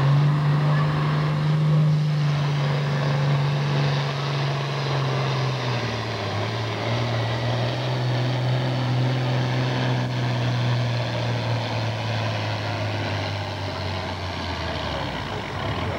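Green John Deere farm tractor's diesel engine running flat out under the load of a pulling sled. Its steady note drops about six seconds in and sinks further near the end as the engine lugs down, then fades.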